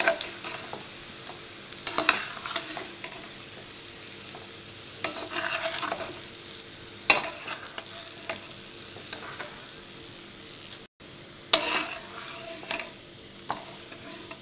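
Oil sizzling in a frying pan while a metal slotted ladle stirs and scrapes against the pan, scooping out fried onion, curry leaves and green chillies; the scrapes come every second or two over the steady sizzle.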